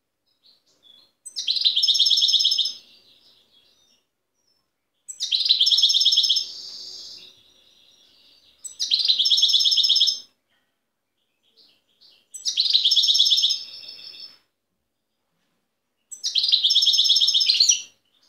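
European goldfinch singing five short phrases, each a fast, high twittering run of about two seconds, with brief pauses between them.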